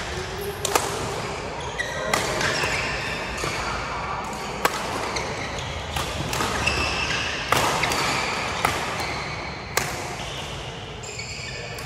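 Badminton rally: sharp racket strikes on the shuttlecock every second or two, with short high squeaks of shoes on the court floor between them and a background of voices.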